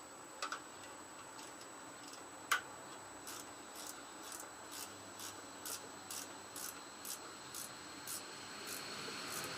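Ratcheting gear wrench clicking in a steady rhythm, about two clicks a second, as a bolt is worked out of a Tecumseh engine. A single sharper click comes about two and a half seconds in.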